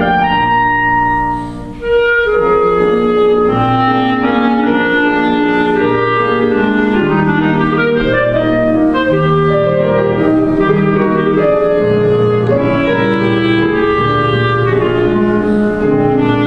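Clarinet playing a melody over piano accompaniment, with a short break between phrases about a second and a half in.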